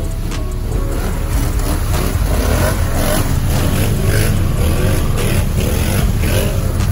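ATV engines running and revving with a steady low rumble, several four-wheelers idling and pulling through mud.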